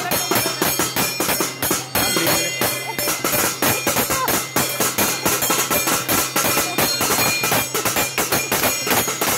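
Stainless-steel plates and bowls beaten with steel spoons by children: fast, irregular metal clanging with a ringing tone, over a steady low hum.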